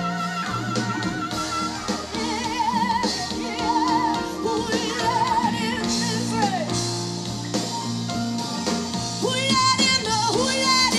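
Live band music, with electric guitars, keyboards and drums, under a woman singing long, wavering wordless notes that climb higher near the end.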